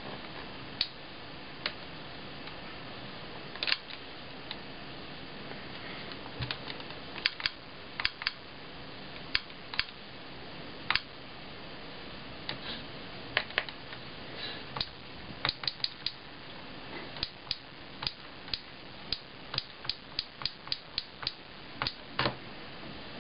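Keys of a Sharp Mobilion HC-4500 handheld PC being pressed and its touchscreen tapped with a stylus: short, sharp, irregular clicks over a steady faint hiss. The clicks are sparse at first and come faster, a few a second, in the second half.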